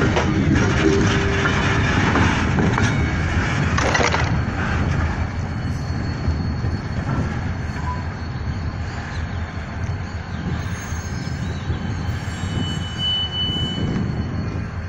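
Freight train wagons rolling slowly while shunting, with a rumble and wheel clatter and a few short wheel squeals; the rumble is loudest for the first four seconds, then eases as the train draws away or slows.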